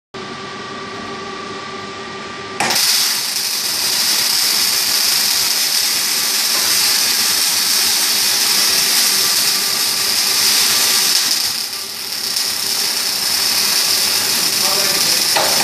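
Automated arc welding of a motorbike silencer: about two and a half seconds in, the arc strikes and gives a steady, loud crackling hiss that eases briefly about three-quarters of the way through. Before it there is a quieter machine hum with a faint steady tone.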